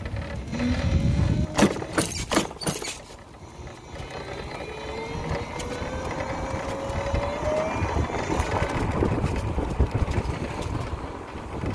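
Rear hub motor of a Boom BD578Z electric motorcycle whining, the pitch rising steadily as the bike speeds up, over a low rumble. A few sharp knocks come about two seconds in.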